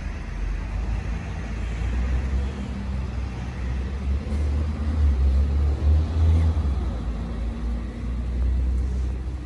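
Low rumble of road traffic, swelling louder about five seconds in as a vehicle passes.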